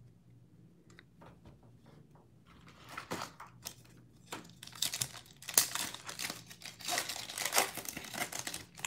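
Foil wrapper of a Donruss Optic basketball card pack crinkling and tearing as it is handled and ripped open, starting about three seconds in and getting louder.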